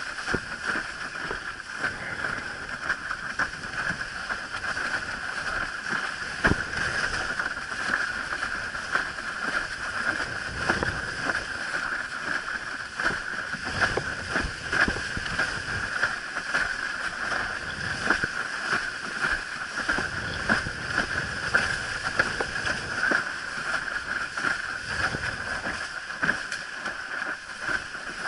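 Water rushing and sloshing against a windsurf board's hull as it planes across choppy water, a steady hiss with low rumbling swells and a few sharp knocks from the board slapping the chop.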